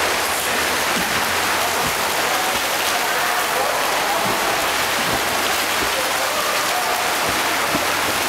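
Splashing of several swimmers stroking and kicking through the water of a swimming pool: a steady, unbroken wash of water noise.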